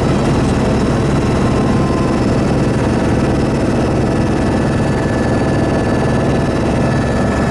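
Helicopter in flight heard from inside the cabin: a loud, steady drone of engine and rotor, with a few thin, steady whining tones above it.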